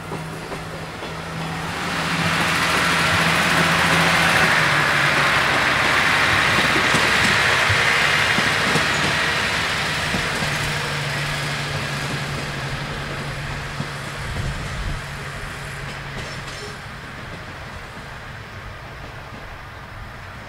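A Niigata Transys-built diesel railcar moves slowly past, its diesel engine humming steadily under the noise of wheels on rails. The rail noise swells about two seconds in, is loudest for several seconds, then fades, with a few clicks from the wheels crossing rail joints or points near the end.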